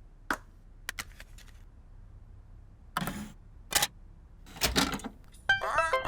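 A string of short, sharp clicks and clunks, a few seconds apart, then a bright electronic tune starting near the end.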